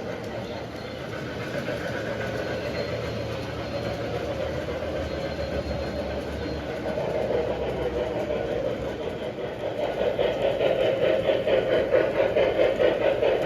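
Model train running on the layout's track, a steady mechanical rumble of motor and wheels on rail. It grows louder a few seconds before the end, with a regular clicking rhythm as it comes near.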